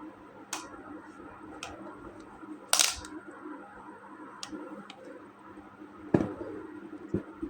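Plastic toy pieces and packaging being handled: a string of sharp clicks and snaps. The loudest are a short burst about three seconds in and a snap with a knock just after six seconds.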